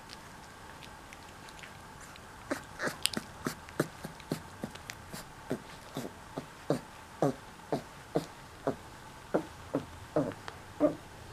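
Mastiff puppy, four weeks old, crying in a run of short falling-pitch yelps, about two a second, starting a couple of seconds in.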